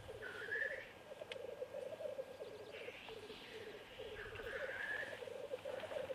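Male black grouse displaying at a lek: a continuous bubbling, dove-like rookooing, broken three times by a hissing 'tchu-whee' sneeze call, about half a second in, around the middle and near the end.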